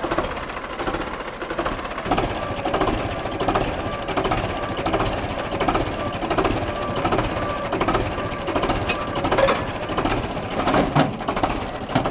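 Old diesel tractor engine running with a fast, steady clatter. A few sharper clanks come near the end.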